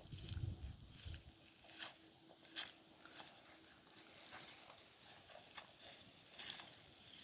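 Faint, irregular rustling and light crackling, with a faint steady hum under it for the first few seconds.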